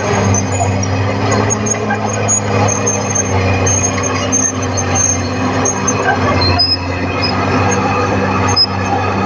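Caterpillar D6R XL bulldozer's diesel engine running at a steady pitch, with intermittent high squeaks over the clatter of the machine.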